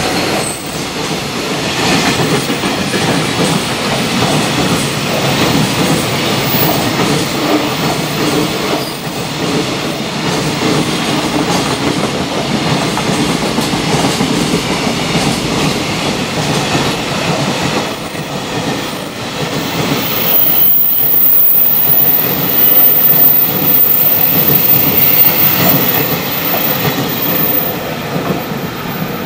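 Long container freight train passing close at speed: wheels clacking rhythmically over the rail joints under a steady rumble of the wagons, dropping away as the last wagon passes near the end.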